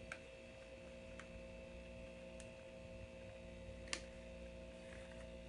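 A few faint, separate clicks, the loudest about four seconds in, from small tools and parts being handled during an iPhone repair, over a steady electrical hum.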